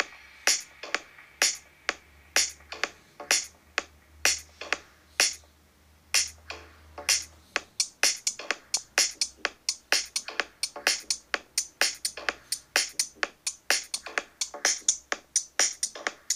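Electronic techno beat playing from Ableton Live: sharp drum-machine percussion hits, sparse and uneven at first, then a busier, regular pattern from about halfway. A low bass drone sits under the first half and stops about halfway.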